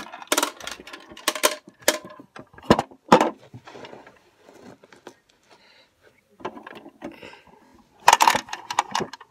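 Handling noise from a phone being held against clothing: fabric rubbing and brushing over the microphone, with sharp clicks and knocks. The noise goes quiet for a couple of seconds around the middle and comes back loudest near the end.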